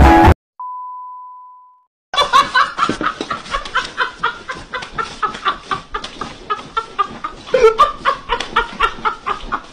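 Music cuts off, then a single steady beep tone fades out. About two seconds in, a person starts laughing hard in a fast, continuous run of short ha-ha sounds.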